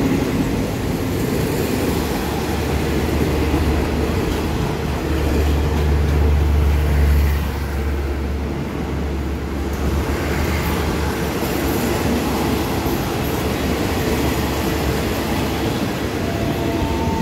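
A passenger train's coaches rolling slowly alongside a station platform as it comes in to stop, with a steady rumble of wheels on rail. A low engine hum swells about five seconds in and eases off after about seven and a half seconds.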